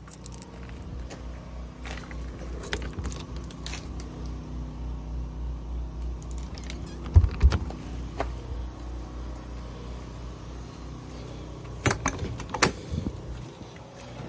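Keys jangling with scattered sharp clicks and knocks as a travel trailer's entry door is unlocked and opened: a loud knock about seven seconds in and a cluster of clicks near twelve seconds.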